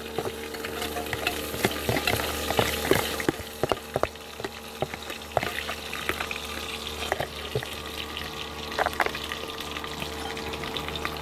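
Spoon scraping and tapping cake batter from a mixing bowl into a baking pan: irregular clicks and scrapes, over the steady drone of a motorised canoe's engine passing on the river.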